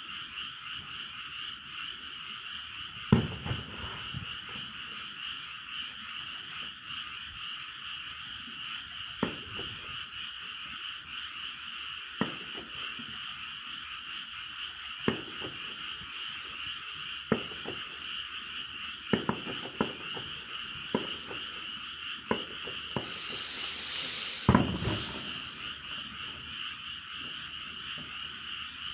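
A dense, steady chorus of frogs calling, with about a dozen distant fireworks bangs at uneven intervals over it. The loudest bangs come about three seconds in and near the end, the last one following a short hiss.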